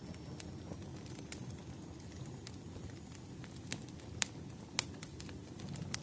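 Firewood burning: a steady low rumble of flames with irregular sharp crackling pops, the loudest a little past four seconds in.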